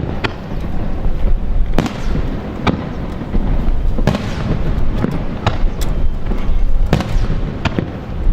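Aerial fireworks shells bursting in quick succession: about nine sharp bangs, roughly one a second, over a continuous low rumble.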